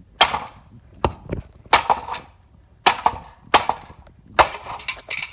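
Hammer blows smashing a DirecTV satellite receiver lying on concrete: about six sharp, loud strikes, roughly one a second, with a few lighter knocks between them.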